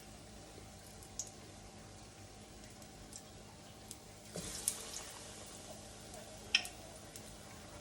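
Battered cauliflower frying in hot cooking oil: a short burst of sizzling about halfway through, with a few faint clicks, the sharpest about a second and a half before the end.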